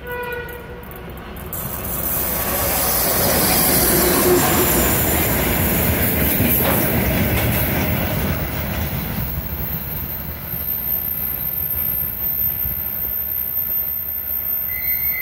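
ChME3 shunting diesel locomotive with a freight train of tank wagons passing close by. A short tone sounds right at the start. The engine and wheel noise build to a loud rumble about four seconds in, followed by the steady rolling rumble and rail clatter of the tank cars going past, with a high wheel squeal near the end.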